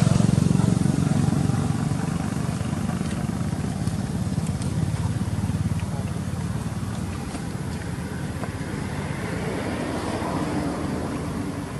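Low, steady hum of a motor vehicle's engine, loudest at the start and slowly fading away.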